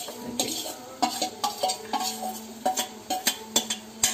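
A metal spoon scraping and knocking fried chicken out of a stainless-steel bowl into a kadai: about ten sharp clinks, the bowl ringing briefly after the harder knocks.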